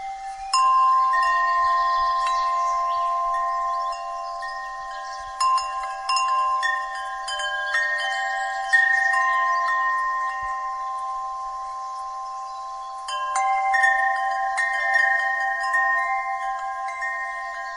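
Wind chimes ringing. Clusters of clear notes are struck near the start, about halfway through and again later, each note ringing on and overlapping the others.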